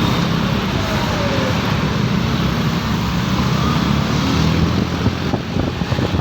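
A heavy road vehicle, a bus, running close by with steady road noise: a loud, even engine rumble.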